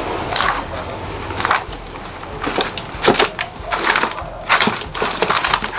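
String ties being picked and pulled loose from the lid of a plastic lattice basket: irregular scratchy rasps and crackles of string and plastic rubbing, about one every second.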